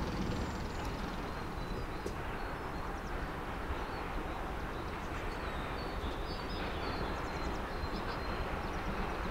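Distant steam locomotive working towards the listener, heard as a faint, steady rumble under open-air ambience, with birds chirping.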